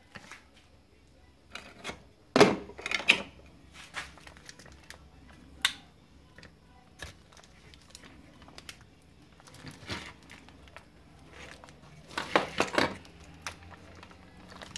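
Foil-wrapped lithium pouch cells being handled and pulled apart, making crinkling and rustling with scattered sharp clicks. The loudest is about two and a half seconds in, and a cluster of them comes near the end.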